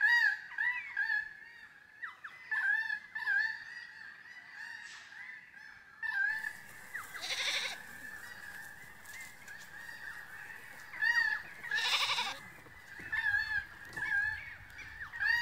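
Goats bleating twice, about seven and twelve seconds in, over many short, repeated bird calls.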